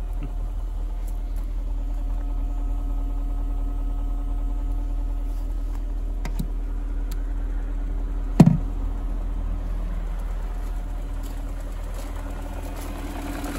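BMW 740i E38's 4.4-litre V8 idling steadily. A single sharp knock sounds about eight seconds in.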